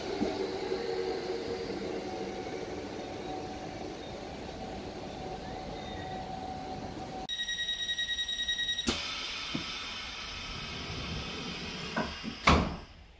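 South Western Railway suburban electric train running along the platform with a steady rumble and a faint whine. It cuts to a train's door warning: about ten rapid beeps. Near the end come two sharp knocks as the doors close.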